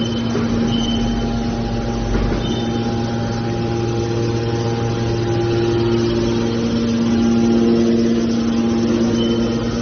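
Small aluminium can baler's motor and hydraulic pump running with a steady hum, which shifts slightly about four seconds in.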